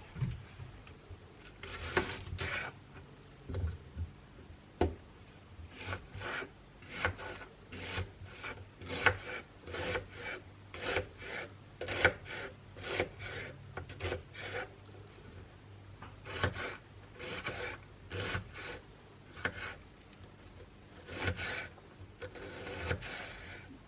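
Repeated short rasping strokes at an uneven pace, about one to two a second: mushrooms being prepared by hand for cooking.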